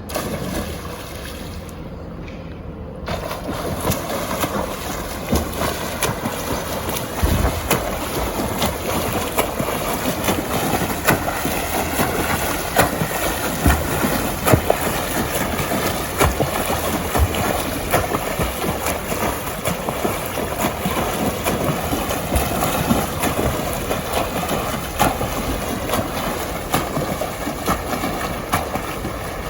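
Water splashing and rushing from a swimmer swimming fast freestyle, starting about three seconds in, with frequent sharp splashes.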